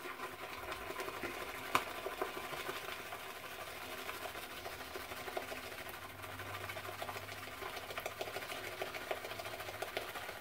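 Omega S-Brush synthetic shaving brush whisked around a Japanese soup bowl, building a lather from shave soap: a fast, steady swishing and ticking, with one sharp knock just under two seconds in.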